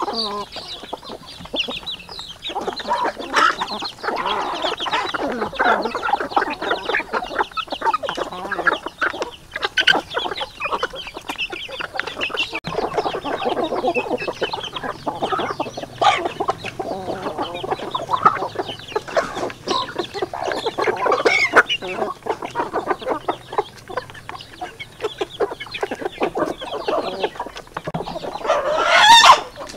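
A flock of chickens clucking while they peck at feed in a bamboo trough, with many short taps throughout. One loud rising call stands out near the end.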